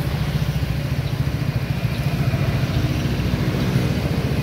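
Honda SH 2020 scooter's single-cylinder engine idling steadily through an aftermarket 4Road exhaust, an even, warm-sounding low burble.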